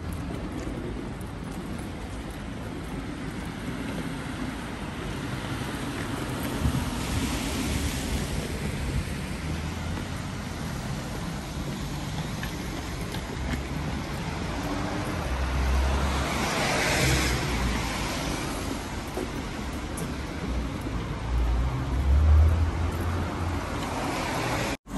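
Street traffic on a wet road: steady traffic noise, with the tyre hiss of passing cars swelling and fading twice, a few seconds in and again past the middle, and low rumbles from time to time.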